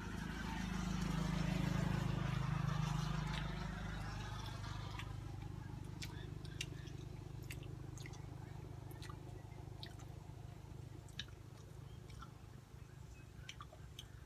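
Two people chewing soft durian flesh, with wet mouth sounds and short sharp lip-smacking clicks scattered through. A low hum swells and fades over the first four seconds.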